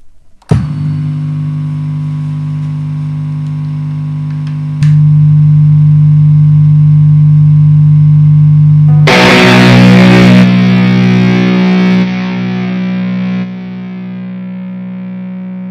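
Electric guitar played through a distorted Marshall amplifier: a chord struck suddenly about half a second in and left ringing, getting louder near five seconds. About nine seconds in a harsh, noisy blast comes in on top of it, then the sound steps down in loudness twice while the low chord keeps ringing.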